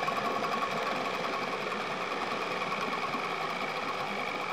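Small outboard motor running steadily at low speed, with a fast, even beat, as its propeller churns the water and pushes the boat off.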